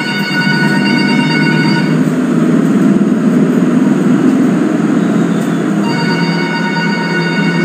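Telephone ringing: two rings, each a steady electronic tone about two seconds long, the first at the start and the second about six seconds in. A steady low rumbling noise runs underneath.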